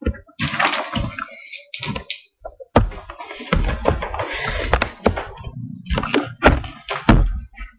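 Handling noise from a laptop being carried and moved around close to its built-in microphone: repeated sharp knocks and bumps with bursts of rustling in between.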